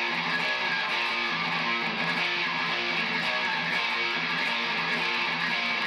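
Electric guitar playing a steady rhythmic riff of power chords, the chord changing about twice a second.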